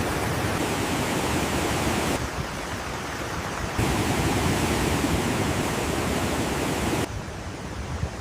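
Rushing floodwater, a steady dense rush of water. It drops abruptly in level about two seconds in, jumps back up about four seconds in, and drops again near the end.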